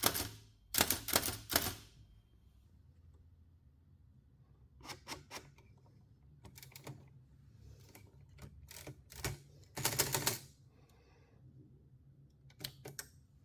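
Hammond Multiplex typewriter being typed on: a small hammer behind the paper strikes it against the ribbon and the type wheel, giving sharp clacks. They come in short irregular runs of strokes with pauses of a second or more between them.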